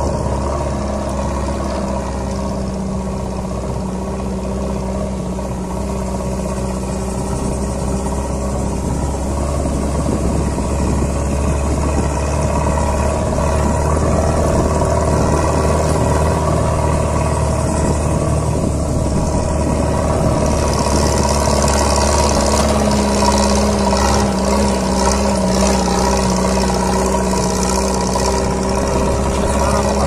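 Off-road vehicle's engine running steadily under way on a rough dirt track, a constant low drone. From about two-thirds of the way through, a fluttering hiss joins it.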